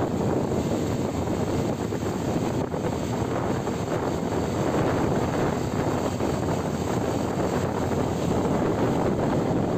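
Steady rush of wind on the microphone and vehicle road noise while travelling at speed, with no separate events standing out.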